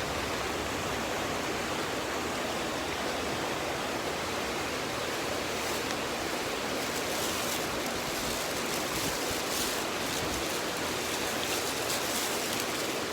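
Mountain stream rushing over rocks, a steady, even wash of water noise.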